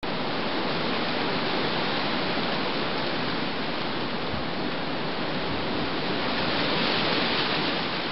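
Steady, even rushing noise that eases off slightly near the end.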